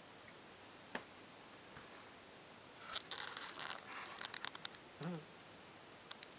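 A sleeping cat snoring faintly: a crackly, rattling breath for nearly two seconds, then a short low snort about five seconds in, with a few scattered faint clicks.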